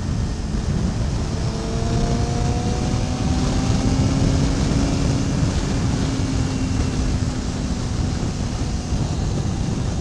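Yamaha YZF600R inline-four engine running at road speed, its note rising over the first few seconds as the bike picks up speed, then holding steady. Heavy wind rush on the microphone.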